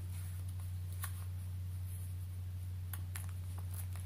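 A few faint clicks and taps as a small black presentation box is handled and its lid lifted open, over a steady low hum.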